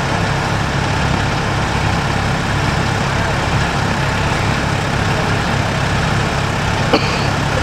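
A heavy farm machine's diesel engine running steadily, with no revving. A short sharp sound cuts in near the end.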